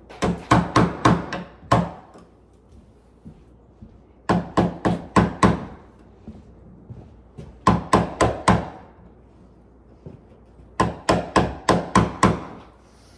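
Hammer tapping a chisel into the wooden edge of a door in four short runs of rapid strikes, a few seconds apart. The chisel is paring out a recess for a door lock's latch so that the door will close.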